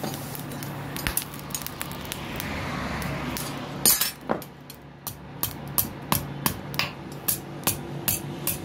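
Hand hammer striking a red-hot sickle blade on a steel anvil block: first a few scattered clinks, one loud strike about four seconds in, then a steady run of ringing metal-on-metal blows, about three a second.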